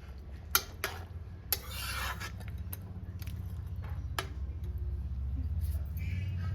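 Utensil scraping and knocking in a cooking pot: a few sharp clicks and a scrape about a second and a half in, over a low steady hum.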